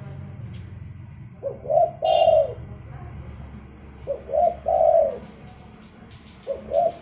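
Spotted dove cooing: three phrases about two and a half seconds apart, each two short notes followed by a longer drawn-out coo. A brief high chirp sounds about two seconds in.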